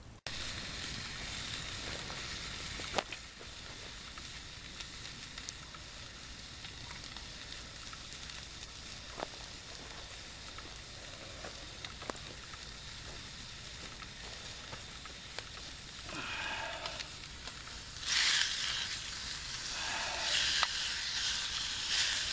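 Bacon sizzling in a metal mess tin over a wood campfire, with scattered sharp pops and crackles from the burning wood. About eighteen seconds in the sizzle grows louder as the bacon is pushed around the tin with a utensil.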